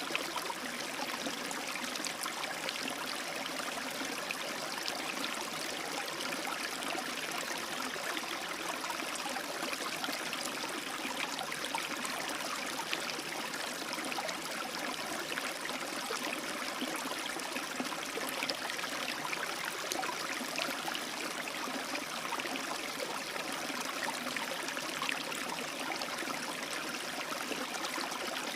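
A small rapid in a stream, water running and splashing steadily over rocks, a continuous bright rushing with fine splashy crackle.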